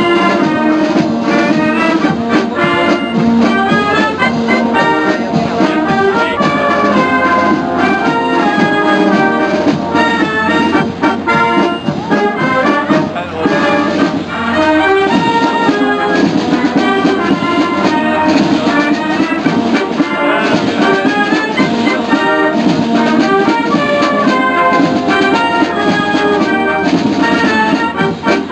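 Military brass band playing a piece: trumpets and other brass carry the tune over snare drums.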